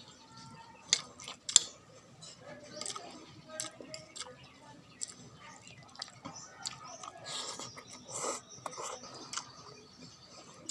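A person chewing and eating pork soup close to the microphone, with scattered small mouth and utensil sounds. Two sharp clicks, about a second and a second and a half in, are the loudest.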